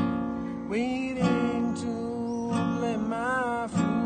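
Acoustic guitar played with the fingers: chords struck about once a second, ringing under a melody line that glides and wavers in pitch.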